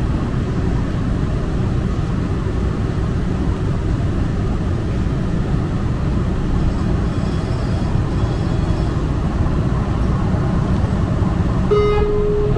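Muni Metro light-rail train running, a steady low rumble of the ride with a faint high whine midway. Near the end a single steady tone sounds and is held for over a second.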